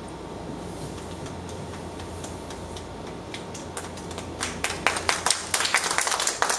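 A steady room hum, then audience clapping that breaks out about four seconds in and quickly grows into quick, irregular applause.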